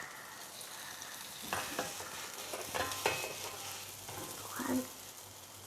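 Banana pancake batter sizzling in a frying pan, with a utensil scraping and knocking against the pan several times as a pancake stuck to the pan is worked loose.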